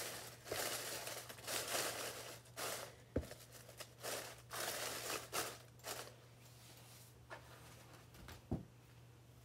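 Dry leaf litter rustling and crunching in a series of bursts as a hand pushes and spreads it in a plastic tub, for about six seconds. A light knock comes about three seconds in and another near the end.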